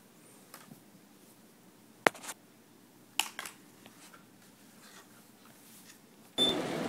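A few light clicks and taps of handling as small objects are moved about, with a quiet room in between. Near the end there is an abrupt switch to a louder, steady outdoor background.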